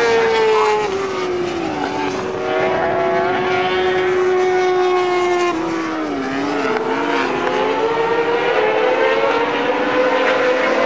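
Superbike racing motorcycle engines at high revs going through a chicane. The pitch falls as they brake and shift down, dips and wavers through the turn, then climbs steadily as they accelerate out.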